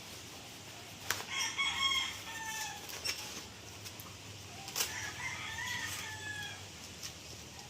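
A rooster crowing twice, each a drawn-out call lasting over a second, the first about a second in and the second near five seconds, with a sharp click just before each crow.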